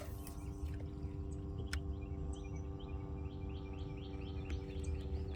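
A steady hum holding several even tones, with a bird chirping in quick runs of short notes over it.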